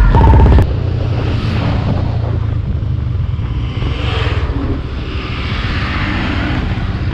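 Royal Enfield Himalayan's single-cylinder engine running at cruising speed, with wind and road noise over the helmet microphone. An oncoming truck rushes past close by about four seconds in, and its noise swells again as it goes by.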